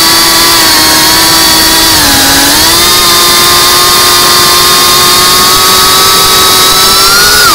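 Cinewhoop quadcopter's ducted motors and propellers whining steadily, the pitch dipping briefly about two seconds in and climbing near the end as the throttle changes.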